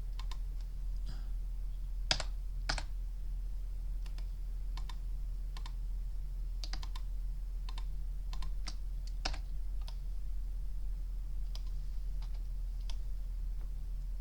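Irregular clicks of a computer keyboard and mouse, about twenty scattered short clicks, over a steady low electrical hum.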